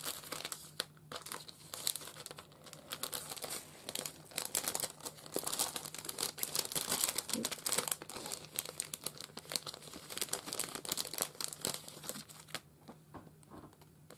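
Clear plastic packaging crinkling and crackling as hands handle and open it, a dense run of crackles that dies down about a second and a half before the end.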